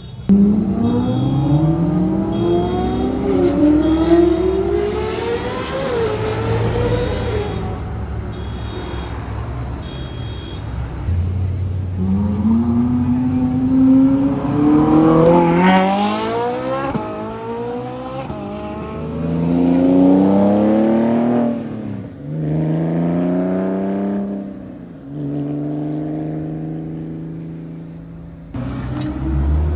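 Ferrari supercar engines accelerating hard at full throttle, one car after another. The engine note climbs in pitch and drops back at each upshift, and changes abruptly between cars.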